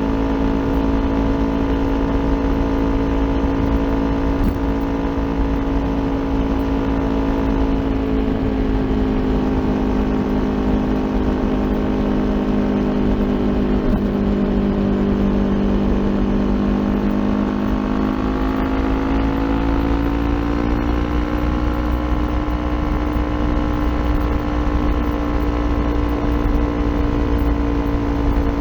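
Kawasaki Ninja 400's parallel-twin engine with an Akrapovic aftermarket exhaust, running steadily under way. The engine note sinks slowly through the first half, rises again about 18 to 22 seconds in, and then holds, over a low steady rumble.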